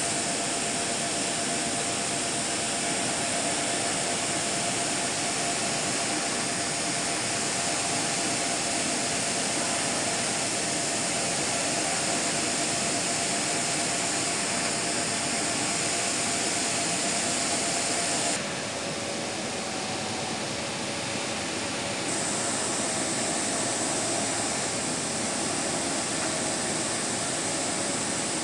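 Large-format UV flatbed printer running: a steady whirring hiss of its fans and print carriage, with a faint high tone. The sound drops a little and loses some of its hiss for a few seconds about two-thirds of the way through, then comes back.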